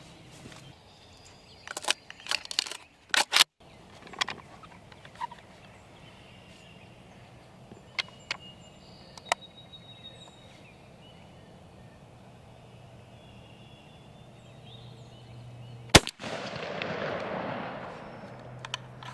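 A single shot from a 20-gauge shotgun about sixteen seconds in, followed by a rolling echo for about two seconds, after a long quiet stretch with a few faint clicks.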